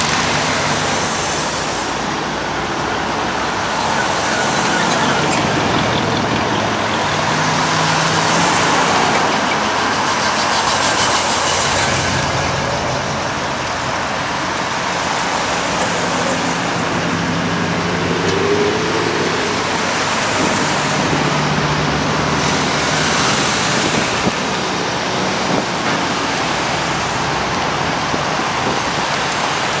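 A slow procession of cars driving past one after another: engines running and tyres on asphalt, with engine hums coming and going as each car passes.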